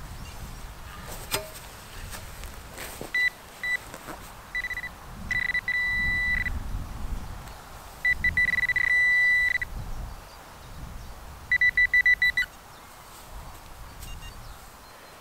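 Metal detector beeping on a target: a few short blips, then two long steady tones of about a second and a half each, then a fast run of short beeps near the end.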